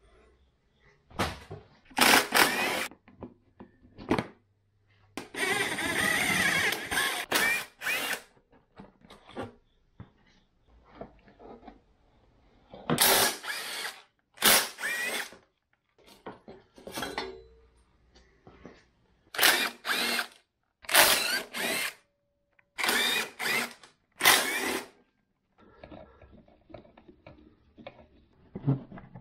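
Cordless drill-driver run in a series of short bursts of about a second each, with one longer run of about three seconds about five seconds in, backing bolts out of the motorcycle.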